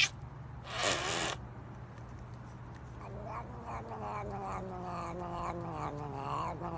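A cat gives a short meow about a second in, then a long, drawn-out wavering yowl whose pitch slowly sinks.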